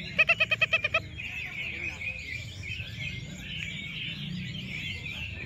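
Many caged orange-headed thrushes singing at once, a dense overlapping chorus of high warbling song. Near the start a loud, rapid run of about eight pitched notes cuts through for under a second.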